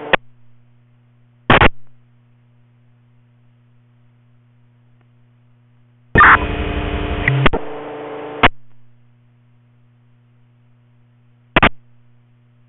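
Radio scanner receiving short squelch bursts of static, about a second and a half in and again near the end, and a two-second open transmission of hiss with a steady tone and no voice about six seconds in, each cut off abruptly by the squelch. A low steady hum runs between the bursts.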